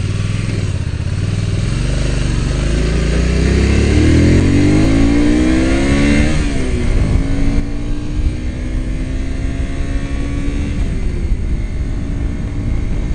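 Honda VTR250's V-twin engine pulling away and accelerating, its pitch climbing for about six seconds, dropping at a gear change, then holding steadier before falling off again near the end. Wind rushes over the helmet-mounted microphone throughout.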